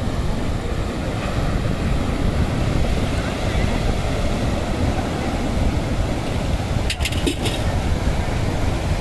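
Sea waves breaking on a rocky shore, mixed with a steady low rumble of wind on the microphone. A few brief clicks come about seven seconds in.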